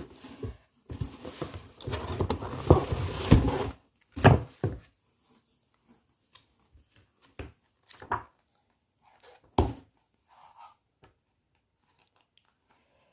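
Packaging being torn open and crinkled for about the first four seconds, then a few separate sharp knocks and faint handling.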